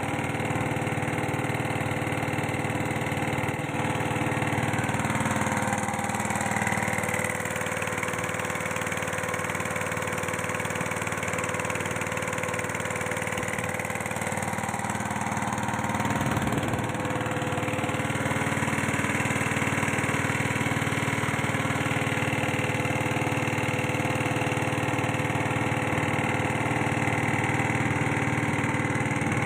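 Small engine running steadily under way, its note shifting briefly about halfway through.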